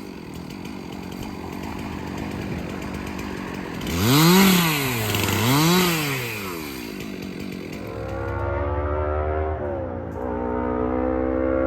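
Stihl MS 362 two-stroke chainsaw running rough at low speed, revved up and back down twice about four and six seconds in. From about eight seconds a steady droning vehicle noise comes in: a small car passing with a loud exhaust that sounds like a big motorbike.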